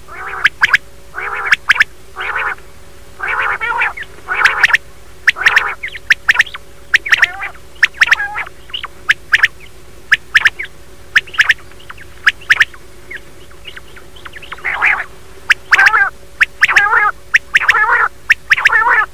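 Quail (batair) calling over and over in short, sharp calls with a wavering pitch, coming thick and uneven, as on a quail lure recording played to draw birds in. A faint steady hum lies underneath.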